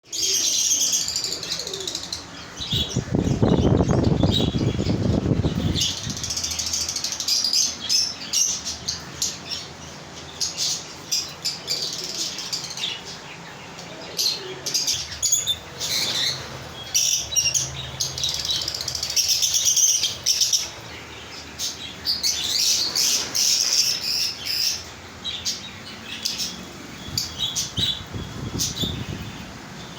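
Many small cage birds chirping and calling together, with dense high chirps throughout. Two louder low rustling bursts come a few seconds in and again near the end.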